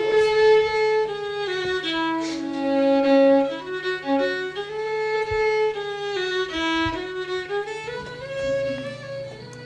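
Old-time fiddle playing a melody, one note at a time, each held for about half a second to a second.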